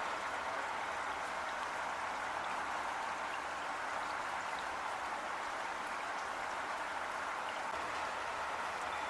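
Heavy rain falling steadily, a dense even hiss of drops with faint scattered patters.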